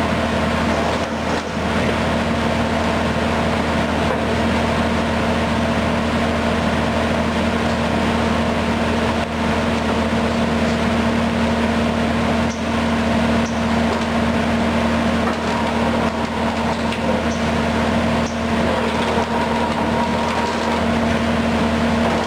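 1989 Finn-Power TP 3015 CNC turret punch press running under power: a steady machine hum with a few faint clicks.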